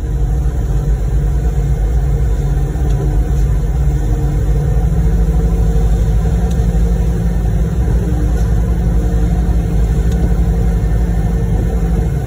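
Steady low rumble of diesel construction machinery running during a concrete pour: the concrete pump truck and a ride-on laser screed at work.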